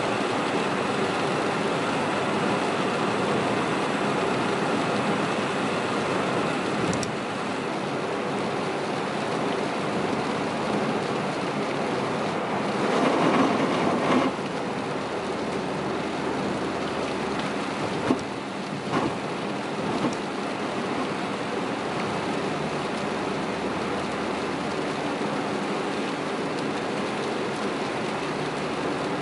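Heavy rain drumming on a moving car and its tyres hissing through standing water, heard from inside the cabin as a steady wash of noise. A louder whoosh of water rises for about two seconds near the middle, and a few short knocks come a few seconds later.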